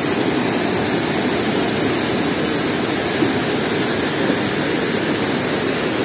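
The Tarsus waterfall on the Berdan River: water pouring over boulders into rapids, a steady rushing roar with no let-up.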